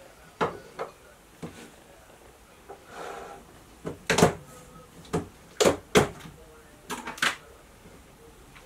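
A ceramic dish set down on a kitchen worktop, then a series of sharp clicks and knocks as a plastic food tub is handled and its airtight lid pulled off, the loudest knocks about four and six seconds in.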